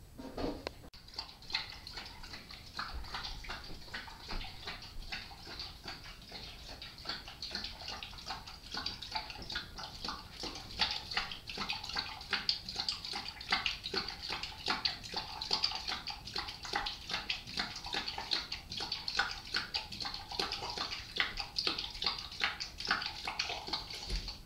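Boxer dog eating from a stainless-steel bowl: a dense, irregular run of short crunching and clicking sounds that keeps going after a brief gap near the start.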